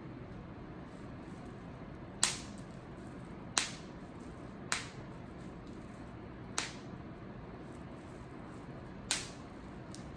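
Five short, sharp clicks at irregular intervals from tapping on a smartphone during its setup, over a low steady background hum.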